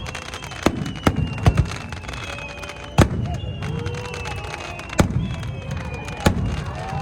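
Aerial fireworks shells bursting in a string of sharp booms: four in quick succession in the first second and a half, then one every couple of seconds over a continuous low rumble.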